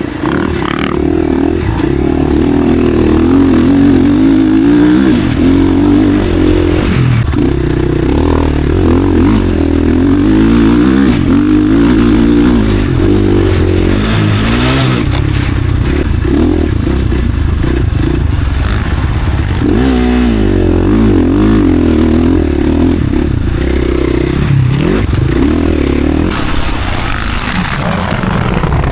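KTM SX-F single-cylinder four-stroke motocross bike engine being ridden hard, its pitch climbing and dropping over and over as the throttle opens and closes.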